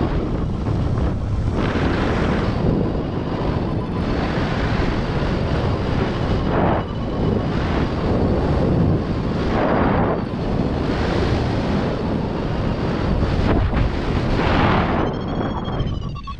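Airflow rushing over the microphone of a paraglider pilot climbing on a winch tow, a steady loud rush that swells and eases every few seconds.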